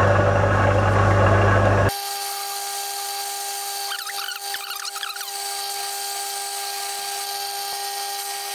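Metal lathe running at slow speed while a 20.5 mm twist drill in the tailstock bores into a spinning metal hub, at first with a loud low hum. About two seconds in, the sound switches abruptly to the same drilling run sped up eight times: a steady, higher-pitched hum, with brief wavering cutting noises near the middle.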